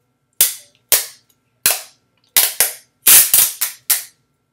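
Clear tape being pulled off a handheld tape dispenser in short jerks: about nine short, sharp rips that come closer together in the second half.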